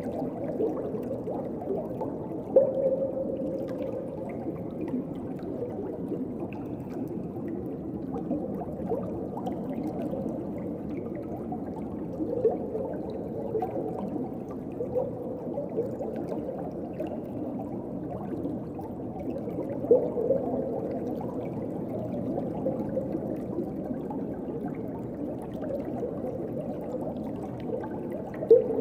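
Underwater ambience: a steady, muffled rush of moving water with gurgling. There are short louder gurgles about 2.5 seconds in, around 20 seconds in and near the end.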